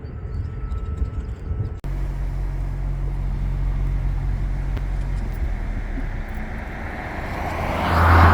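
Car engine and road noise heard from inside a moving car: a steady low drone with a rushing haze that swells near the end. The sound cuts abruptly about two seconds in, then carries on.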